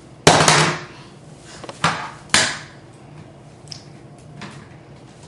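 Three loud thumps on a wooden floor, the first the longest, the other two close together about a second and a half later, as a toddler drops down to sit on it.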